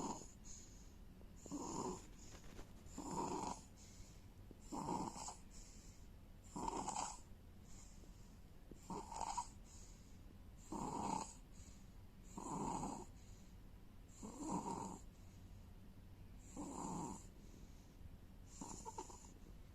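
Faint, regular snoring of someone in deep sleep, one snore about every two seconds, each with a breathy hiss.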